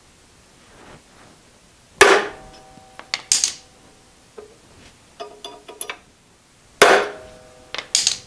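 Two sharp hammer blows on a transfer punch, metal striking metal, about two seconds and nearly seven seconds in, each leaving a short metallic ring; the punch is marking hole centres through a countersunk steel plate. Lighter clinks of metal tools being handled and set down follow each blow.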